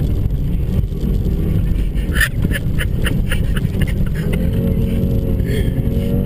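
Car engine and tyres on packed snow, heard from inside the cabin as a steady low rumble. About two seconds in there is a quick run of clicks or knocks. From about four seconds in, a steady droning tone rises over the rumble.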